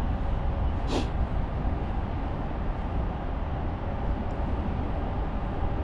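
Wind rumbling on the microphone: a steady, low, blustery noise. A single short sharp click comes about a second in.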